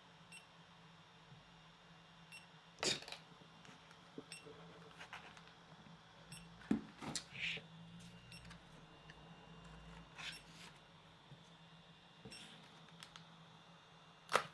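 Quiet handling of small plastic parts: a few scattered clicks and knocks as pieces are fitted together. A faint tick about once a second sounds underneath.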